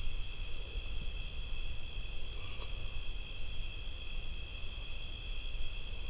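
A steady high-pitched drone of two close tones over a low rumble on the microphone.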